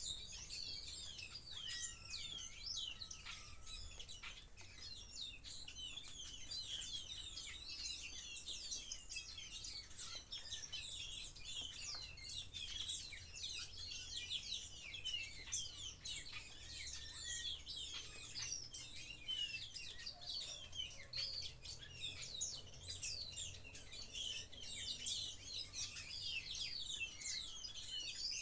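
Many small birds chirping and twittering at once, a dense, unbroken chorus of short high calls.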